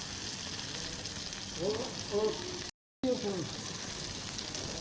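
Oil sizzling and crackling steadily on a hot tawa as fish fries, with a brief total dropout in the sound near the middle.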